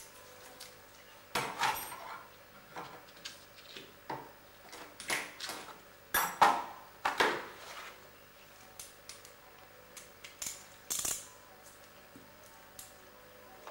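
Metal hand tools and small metal parts clinking and clattering as they are handled and set down, in irregular clusters of knocks. The loudest comes about six and a half seconds in.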